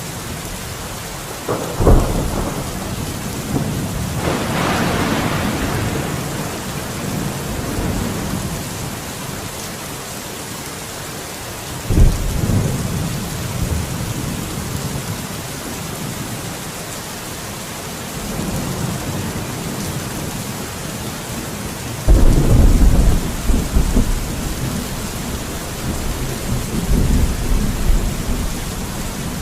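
Steady rain with thunder: sharp cracks about two seconds in and about twelve seconds in, and a longer loud rolling rumble from about twenty-two seconds in, over the even hiss of the rain.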